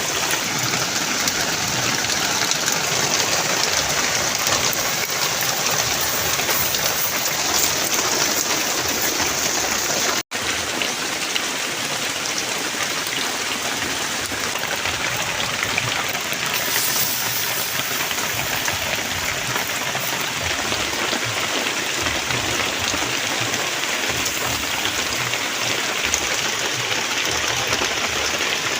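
Fish frying in hot oil: a steady sizzle, broken off for an instant about ten seconds in.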